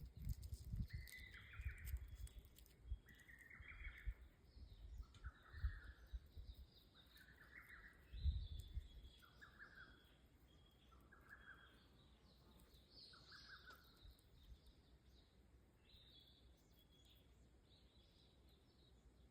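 Faint bird calls: a short note repeated about every two seconds for the first fourteen seconds, over higher chirps that go on throughout. A few low thumps in the first half, the loudest about eight seconds in.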